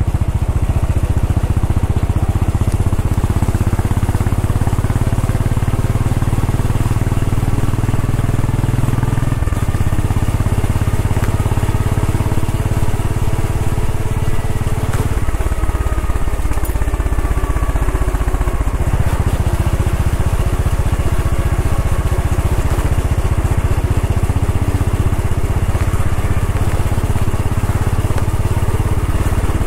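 Royal Enfield Bullet 500 EFI's single-cylinder engine running steadily while riding. Its low note shifts about nine, fifteen and nineteen seconds in.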